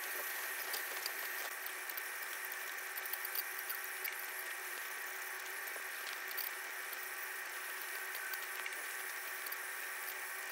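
Ultrasonic dental scaler working on a dog's teeth: a steady hiss of its water spray, with scattered small ticks of the tip against the teeth.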